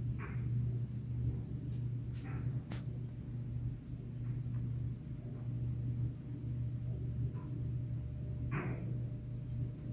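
A steady low hum, with a few short cat meows: one near the start, one about two seconds in and the clearest about three-quarters of the way through. A single sharp click sounds between the first two meows.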